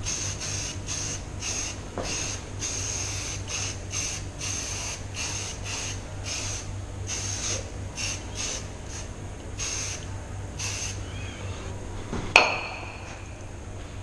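Aerosol spray paint can hissing in many short bursts, about two a second. Near the end comes a single sharp clink that rings briefly.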